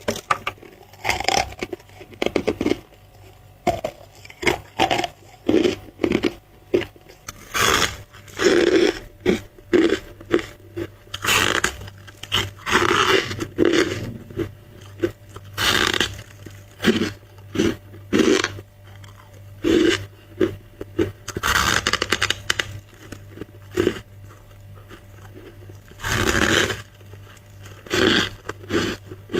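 A person biting and chewing white freezer-frost ice close to the microphone: a string of irregular crunches, some short and some drawn out, with brief pauses between bites.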